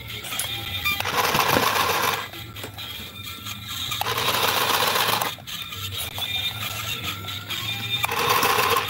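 Battery-powered toy sewing machine running in three short bursts of about a second each as its foot pedal is pressed.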